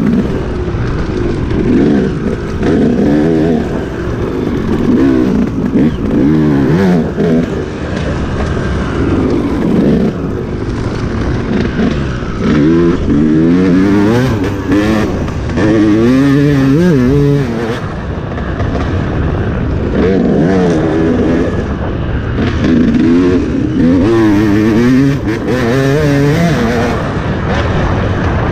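Enduro dirt bike engine revving up and down as it is ridden, its pitch rising and falling every second or two with the throttle. There are a few sharp knocks along the way.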